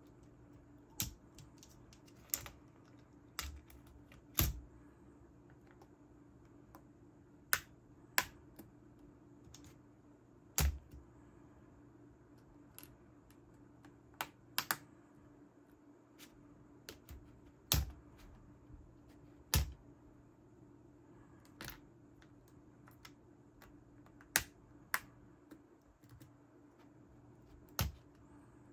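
Plastic keycaps clicking onto the keys of a Lenovo Legion 9i gaming laptop keyboard as they are swapped, with clicks from a plastic keycap tray: about fifteen short sharp clicks at irregular intervals, with pauses between.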